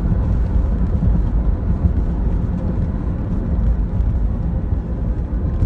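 Steady low road and engine rumble inside the cabin of a moving Buick car.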